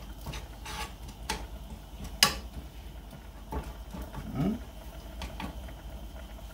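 A metal spoon clinking and scraping against a stainless steel pot while stirring a tomato-and-garlic sofrito, several sharp knocks spread out irregularly, the loudest about two seconds in.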